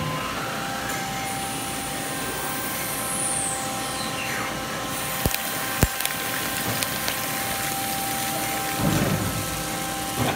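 Hardinge Conquest T-42 CNC turning center running a cycle: a steady machine hum, with a high whine falling in pitch about three seconds in and two sharp clicks near the middle. Near the end comes a low rumble as the machine's sliding door is closed.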